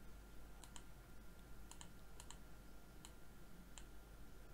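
Faint, sparse clicks at a computer: about eight sharp clicks, several coming in quick pairs, over quiet room tone with a faint steady high hum.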